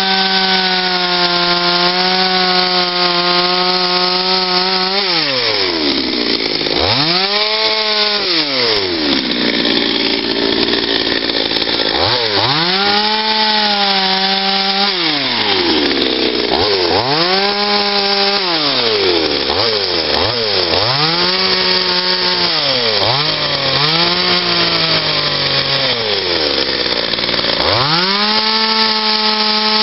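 Patriot two-stroke petrol chainsaw cutting into a log. It runs at full speed for about five seconds, then drops back and revs up again about six times as the cuts are made.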